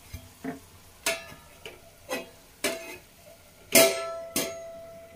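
A steel plate set over a metal kadhai as a lid: several sharp, ringing clinks of metal on metal. The loudest comes about four seconds in, and its ring lingers.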